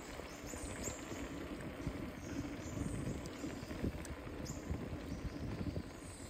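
Riding a bicycle: wind rumbling on the microphone with irregular rattling knocks, as over a rough road, and short high chirps throughout.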